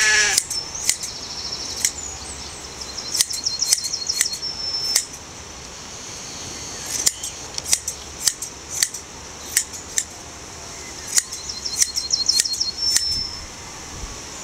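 Hand blade shears snipping through a Shetland sheep's fleece: sharp metallic clicks, single snips with quick runs of them a few seconds in and again near the end.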